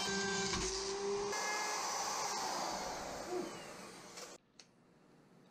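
Handheld electric router running at full speed with a steady high whine, then winding down with a falling pitch; the sound drops away about four and a half seconds in.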